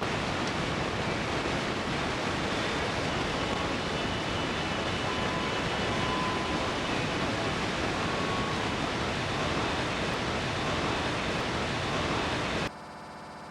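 Steady rushing noise, even across high and low pitches, with a few faint brief tones in it. Near the end it cuts off abruptly to a quieter steady hum.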